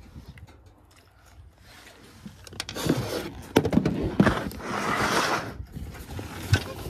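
A plastic storage bin being slid and shifted across a pickup truck's ribbed plastic bed: scraping with several sharp knocks, starting about two seconds in.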